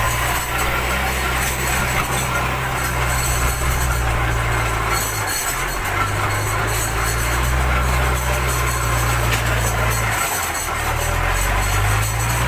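JCB 3DX backhoe loader's diesel engine running under load as it digs and carries clay: a steady low drone, broken briefly about five and ten seconds in.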